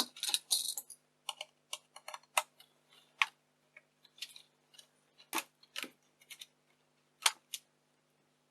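Irregular light clicks and taps of small plastic and metal camcorder parts being handled and worked with tools, with a quick flurry of clicks at the start.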